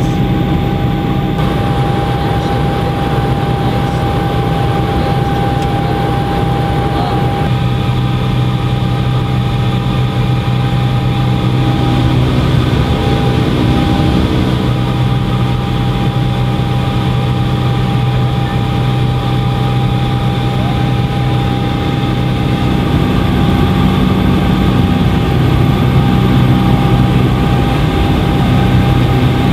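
Helicopter cabin noise in flight: the steady drone of the engine and rotor with a constant high whine over it.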